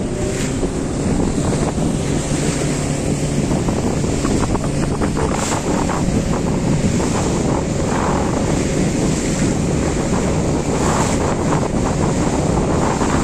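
A small motorboat under way: a steady engine drone mixed with water rushing past the hull and wind buffeting the microphone.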